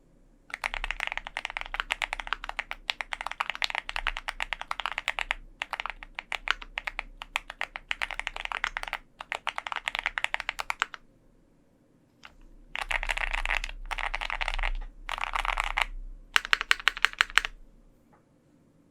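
Typing on an OwLab Mr. Suit custom mechanical keyboard with lubed Drop Holy Panda X tactile switches in an aluminium plate and GMK keycaps. Fast typing in runs of quick key clacks with short gaps, a pause about eleven seconds in, then denser runs and a string of separate, louder key strokes near the end.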